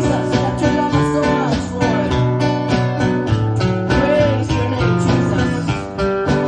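Instrumental passage of a Spanish-language worship song, led by a strummed acoustic guitar in a steady rhythm over sustained bass and chord notes.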